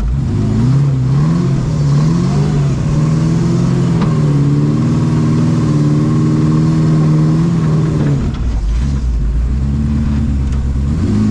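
Engine of a Toyota FJ40-based off-road trial buggy heard from inside the open cockpit, revving up and down repeatedly, held at higher revs for a few seconds, then dropping back to low revs about eight seconds in.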